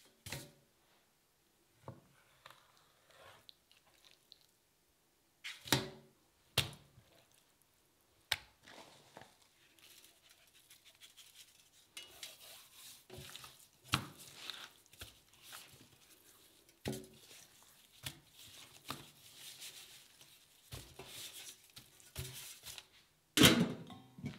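Hands handling raw fish fillets in a stainless steel pan, with scattered soft knocks and clicks, then a long stretch of gritty rustling as the fillets are pressed and rubbed into a granular coating. Near the end a loud metallic clank as a stainless steel lid is set on the pan.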